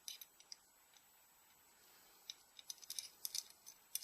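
Light, sharp clicks and ticks of a small M3 screw and metal parts being handled: a few near the start, then a quicker run of them over the last couple of seconds.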